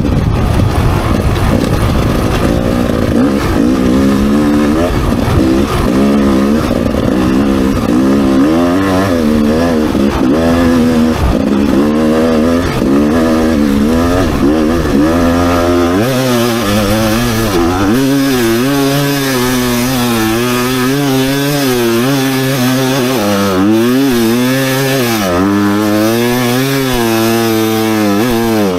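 Off-road motorcycle engine revving up and down over and over, its pitch rising and falling, as a dirt bike labours in deep sand. A heavy low rumble runs under it for the first half and drops away about halfway through.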